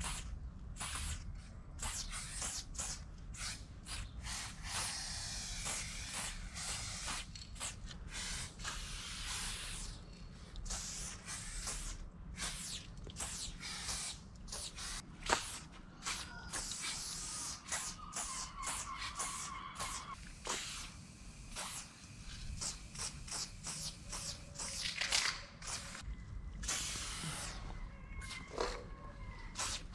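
Aerosol spray-paint can hissing in many short bursts, most a second or less with brief gaps between, as outline lines are sprayed onto a concrete wall.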